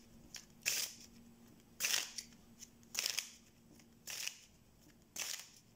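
A deck of Neapolitan playing cards being shuffled overhand by hand: five short, crisp swishes of cards sliding off the deck, about one a second.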